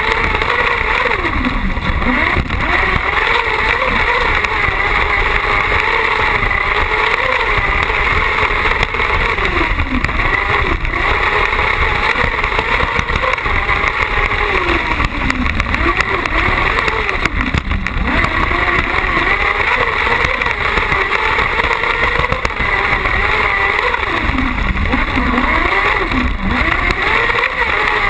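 Carcross buggy's motorcycle-derived engine heard onboard at racing speed, its revs rising and falling again and again through gear changes and corners, over a steady rushing noise.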